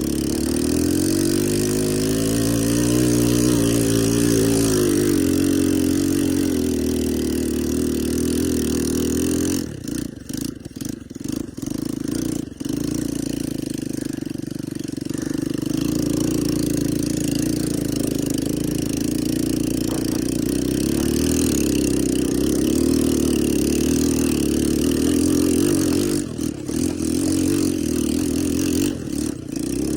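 ATV engine running under throttle, the revs rising and falling in the first few seconds and then holding steady. About ten seconds in and again near the end the sound breaks up into several quick, choppy drops.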